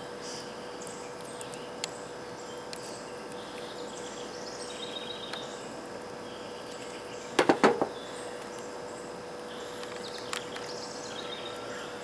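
Hand crimping tool closing on a solar-panel quick-disconnect connector pin: a quick cluster of three or four sharp clicks about seven and a half seconds in. Faint bird and insect chirps and a steady hum sit underneath.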